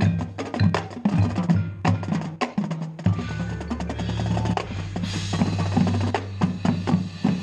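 Marching band music in a percussion-heavy passage: many sharp drum and wood-block-like strikes, with a sustained low bass note coming in about three seconds in.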